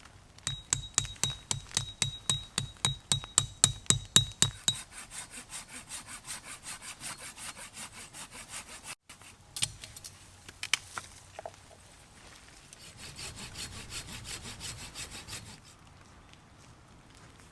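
Hand saw cutting through wood in quick, even back-and-forth strokes, about four a second, loudest in the first few seconds. After a short break, a second, fainter run of strokes follows.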